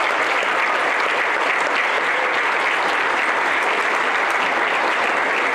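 A congregation applauding: many people clapping steadily.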